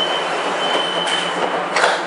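Dubai Tram's Alstom Citadis tram running, an even hiss of running noise with a thin, steady high tone through most of it and a short louder burst near the end.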